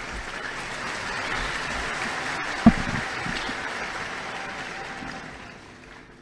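Audience applauding steadily, dying away near the end, with one sharp thump partway through.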